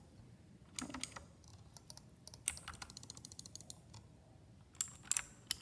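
Keys being pressed on a Redragon Kumara mechanical keyboard: scattered single keystrokes, with a quick flurry of louder clicks near the end.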